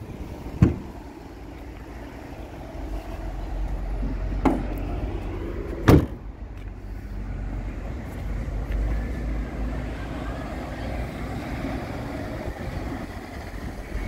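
Rear cargo doors of a 2019 VW Crafter van being closed: a sharp click, then two bangs about a second and a half apart as the doors shut, over a steady low rumble.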